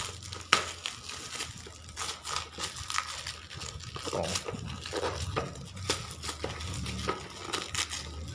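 Plastic courier bag crinkling and crackling as it is cut and pulled open by hand, with many sharp crackles and a loud snap about half a second in.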